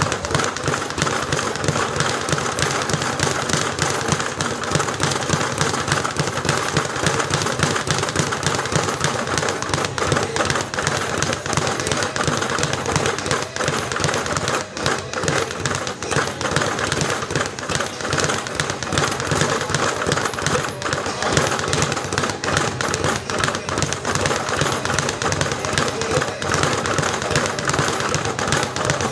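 Speed bag being punched without a break: a rapid, steady rattle of the leather bag rebounding against its platform.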